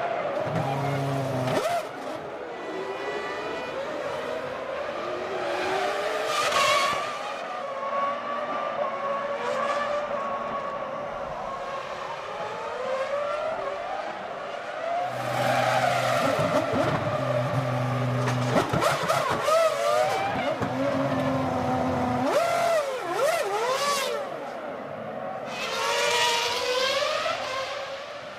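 Formula One cars' 3.0-litre V10 engines revving hard and changing gear as they pass, the engine pitch sweeping up and down again and again, with several close, loud passes.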